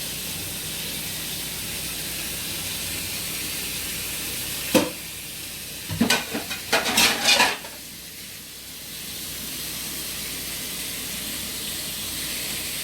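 A spoon knocking and scraping in a mixing bowl while stirring a doughnut dough of flour, sugar, egg and oil: one sharp knock about five seconds in, then a quick cluster of clatters near seven seconds, over a steady hiss.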